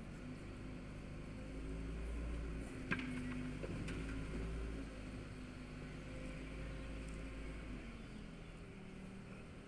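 Engine of a long-boom demolition machine running steadily while it knocks down an old masonry building, with a low rumble underneath. There is one sharp knock about three seconds in.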